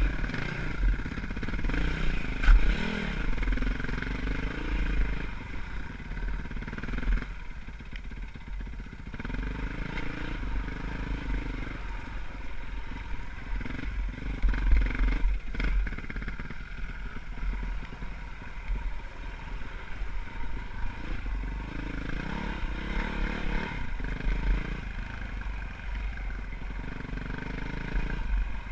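Dirt bike engine running off-road, its revs rising and falling as the bike works over rocky ground, with a few sharp knocks along the way.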